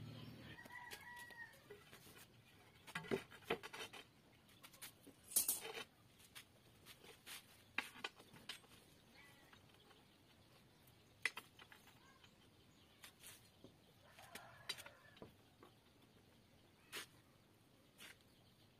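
Short pieces of 8 mm steel rebar clinking and knocking as they are handled and set down on the ground and on a ceramic floor tile, a scattering of sharp ticks with the loudest knocks a few seconds in. A chicken calls in the background about a second in and again later.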